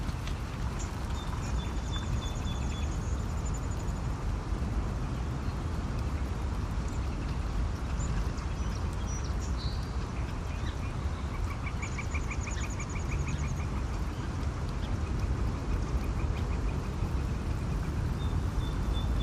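Birds chirping, with short rapid trills now and then, over a steady low rumble.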